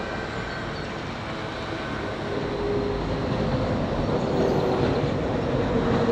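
Steady mechanical rumble with a faint wavering hum, slowly growing louder.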